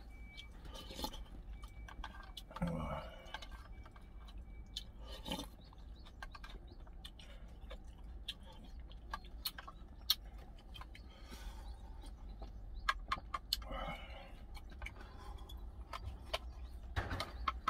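A plastic spoon clicking and scraping in a plastic food container, with the mouth sounds of eating, as the last of a gangdoenjang stew is scooped up. Near the end the container is tipped up and the rest is slurped down.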